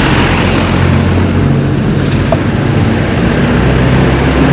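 Motor vehicle engine running with a steady low hum, under road and wind noise.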